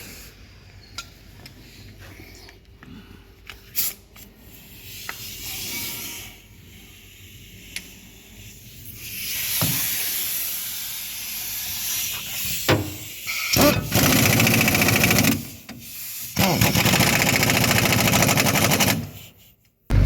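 Scattered clicks and knocks, then long bursts of hissing with a fast mechanical rattle, from a compressed-air tool: two loud bursts in the second half, the last stopping abruptly near the end.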